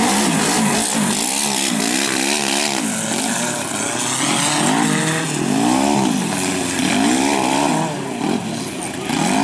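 Off-road 4x4's engine revved hard again and again, its pitch rising and falling repeatedly, as the vehicle fights its way through deep mud.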